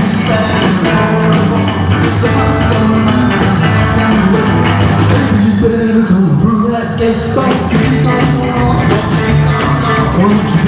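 Rockabilly band playing on stage: a male voice singing over hollow-body electric guitar and a drum kit keeping a steady beat.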